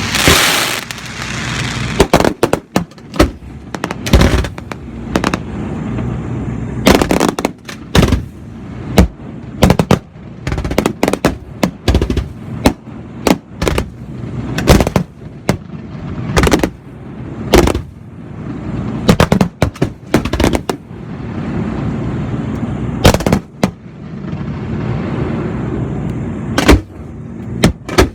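Fireworks going off: many sharp bangs at irregular intervals, some singly and some in quick runs, over a steady low rumble.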